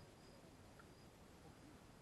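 Near silence: faint background hiss, with a thin high chirp pulsing about three times a second that fades out about a second in.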